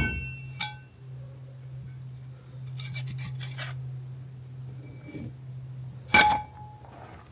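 Loose metal brake parts clinking and ringing as they are handled: a sharp ringing clink at the start, a few lighter rattles about three seconds in, and another ringing clink near the end, over a steady low hum.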